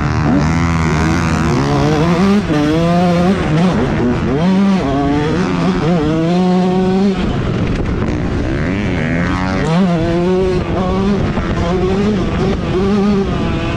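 Motocross bike engine revving up and down over and over as the rider accelerates and shifts, picked up by the bike's onboard camera.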